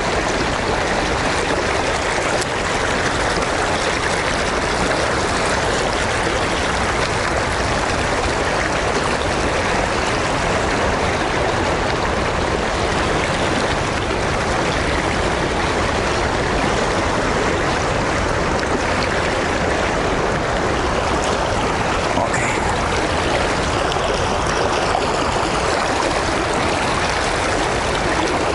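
Fast river current rushing steadily, an even, unbroken wash of water.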